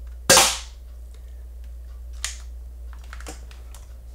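Spring-powered airsoft Desert Eagle pistol firing a single shot about a third of a second in: one sharp snap with a short ring. A few much fainter clicks follow later.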